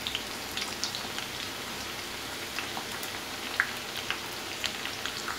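Mustard oil sizzling in a pan around frying onion and garlic, a steady crackling hiss with scattered sharp pops.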